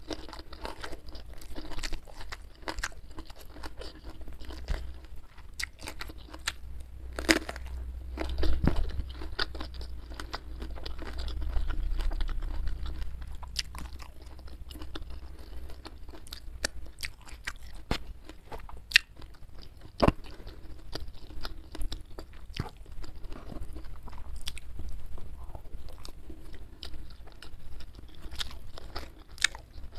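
Close-up chewing and crunching of a mouthful of rice with petai beans, squid sambal and salted fish, with many sharp wet mouth clicks.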